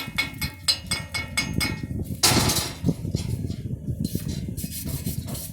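Chipping hammer rapping steel to knock slag off a stick weld, about six quick strikes a second, stopping about two seconds in. A short scraping hiss and lighter clatter follow.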